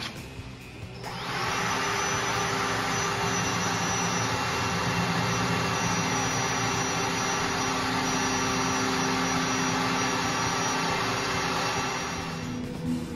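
Cordless drill running at a steady speed for about eleven seconds while drilling a hole in the metal grill body, spinning up about a second in and stopping near the end.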